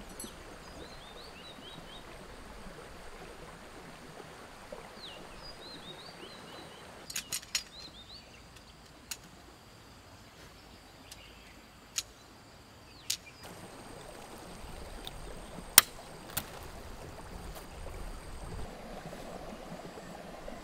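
Steady rush of a flowing stream, with small birds chirping now and then in the first half. A handful of sharp single clicks or knocks are scattered through it, the loudest about three-quarters of the way through.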